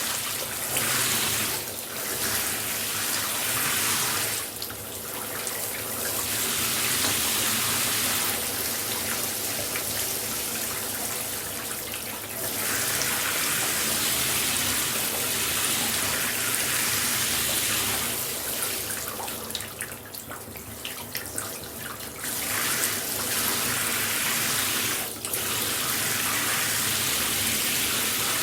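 Shower spray running steadily, a dense hiss of falling water. It dips in level a few times, most clearly for a few seconds about two-thirds of the way through.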